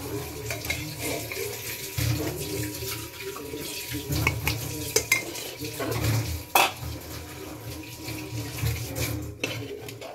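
Metal ladle scraping and clinking against an aluminium pressure cooker and a steel plate as curry is served out, with several sharp clinks, the loudest about six and a half seconds in.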